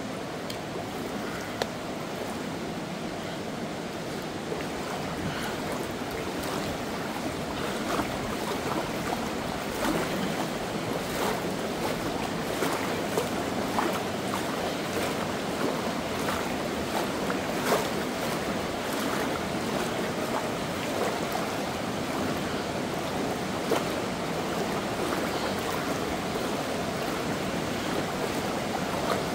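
The Alcantara river's water rushing steadily through the gorge, with brief splashes here and there.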